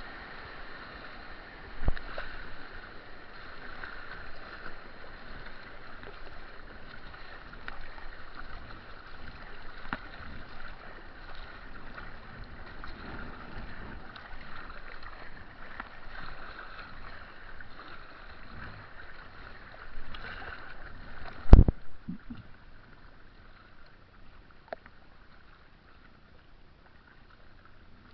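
Kayak on moving water: a steady rush and splash of water around the boat, with a sharp knock about two seconds in and a loud heavy thump later on, after which the water noise falls away quieter.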